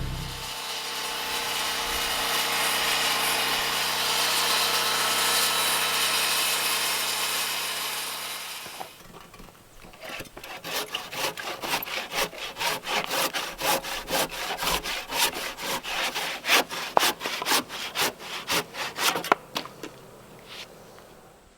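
Wood being sawn: a steady rasping hiss for about eight seconds, then a handsaw cutting through a timber beam in quick back-and-forth strokes, about two to three a second, that stop shortly before the end.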